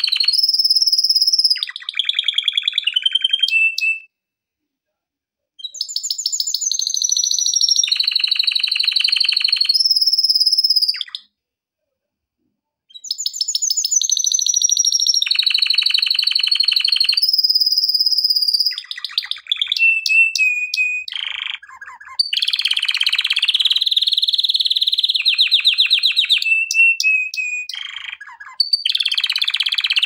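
Male domestic canary singing a loud, continuous song of rapid trills, rolls and clear whistled notes, broken by two short pauses, about four and eleven seconds in.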